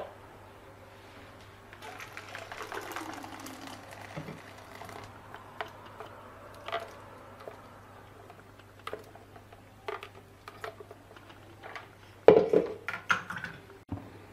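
Thick blended tomato and pepper purée poured from a blender jug into a metal strainer bowl, a soft wet pouring sound over a few seconds, followed by scattered light knocks. Near the end a wooden spatula scrapes and knocks against the metal strainer, loudest then, as the hot purée is worked through it.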